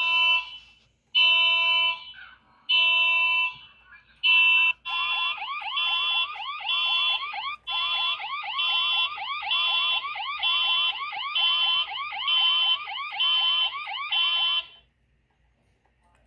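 Electronic alarm-like tones: four separate beeps, each under a second long, then a fast repeating warble of rising chirps that runs for about ten seconds and stops abruptly. No vacuum motor or suction is heard.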